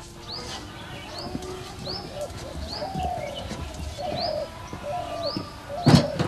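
Birds calling: one repeats a short high chirp about once a second over lower calls. A loud knock near the end.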